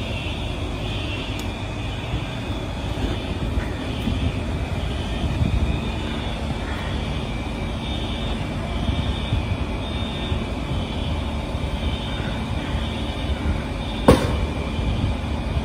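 Steady low rumbling outdoor noise at a street where vehicles are burning after an explosion, with a faint high tone sounding on and off throughout. A single sharp crack about fourteen seconds in is the loudest moment.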